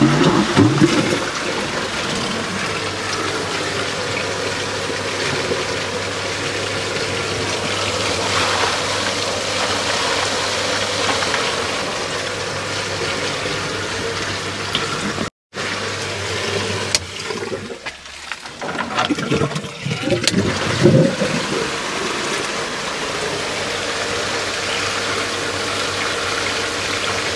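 Pool pump running a Lacron sand filter on backwash: a steady rush of water through the filter and pipework, with a low hum beneath it. The sound cuts out for a moment about halfway, then is rougher and uneven for a few seconds before settling again.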